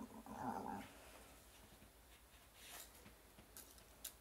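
Near silence: quiet room tone with a short low hum in the first second and a few faint clicks near the end.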